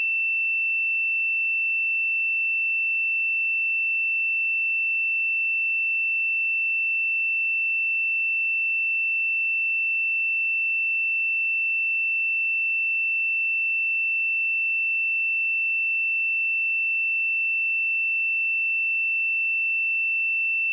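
A steady 2676 Hz sine-wave test tone: one pure, high-pitched tone held at a constant level.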